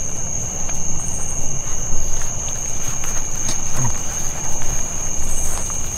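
Chorus of night insects: a steady high-pitched trill held at one pitch, with a fainter second tone below it, over a low rumble.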